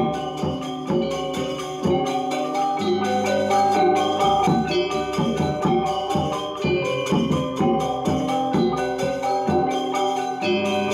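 A Balinese gamelan gong ensemble playing: metallophones and gongs ringing under fast, repeated mallet strikes.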